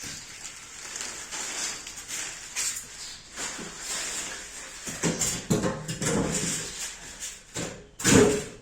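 Handling noise while unpacking a washing machine: rustling and scraping of packaging with scattered knocks, and a louder burst about eight seconds in.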